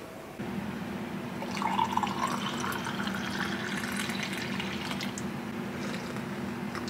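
Coffee poured from a glass French press into a ceramic mug: a splashing trickle from about a second and a half in until about five seconds, over a low steady hum.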